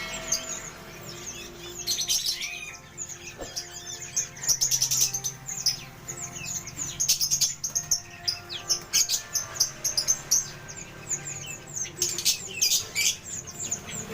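Many small songbirds chirping and twittering at once, their quick overlapping calls and trills running on without a break.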